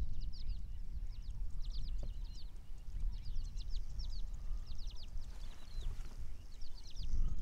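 Wild birds chirping in quick clusters of short, high, falling notes, over a steady low rumble.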